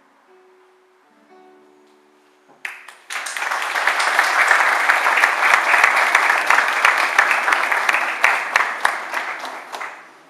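Audience applauding after a poem reading. The clapping breaks out suddenly about three seconds in, holds for around seven seconds and fades near the end. Before it there are only a few faint held notes of soft background music.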